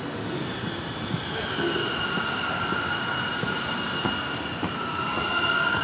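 A wheel squealing steadily at a high pitch, sagging slightly lower near the end, over the bustle of a busy station concourse with footsteps and scattered knocks.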